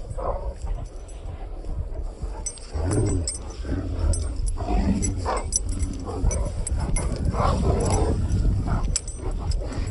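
Dogs vocalising in a series of short calls while playing together.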